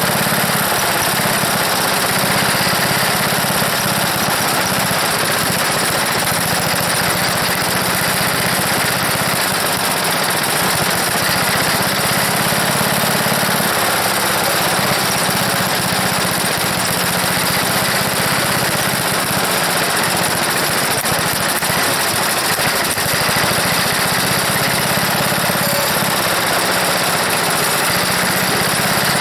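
Old Briggs & Stratton model 9 single-cylinder engine on a wood chipper, running continuously and loudly. The owner suspects a bad carburetor float and a dirty carburetor.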